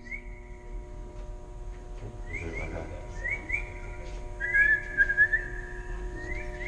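Whistling: short whistled notes, each sliding quickly up and then held, mostly in pairs, with the longest and loudest notes near the middle. A faint steady hum runs underneath.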